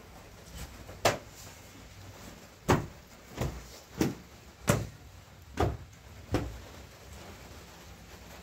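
About seven sharp knocks, unevenly spaced, each a half second to a second and a half after the last.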